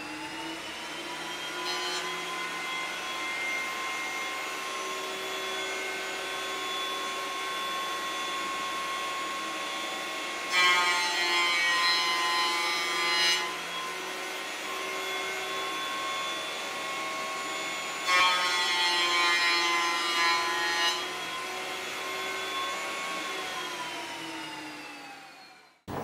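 Benchtop thickness planer running with a steady whine, getting louder and rougher twice as boards are fed through and cut, about ten seconds in and again about eighteen seconds in. Near the end the motor is switched off and winds down to a stop.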